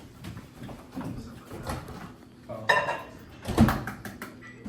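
Kitchen handling sounds: a few knocks and bumps, with the loudest thud about three and a half seconds in.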